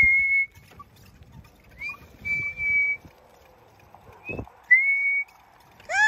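Three high whistles, each sliding up into a steady held note, the middle one about a second long. A short low thump comes just before the last whistle.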